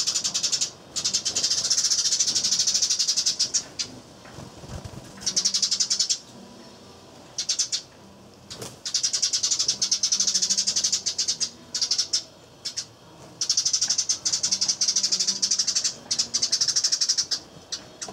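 Eurasian tree sparrows chirping busily: fast runs of high chirps in bouts of one to three seconds, with short pauses between.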